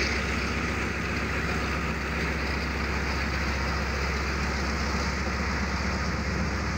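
Diesel-electric locomotive of the ZCU-30 class idling beside the platform: a steady, unchanging low engine hum.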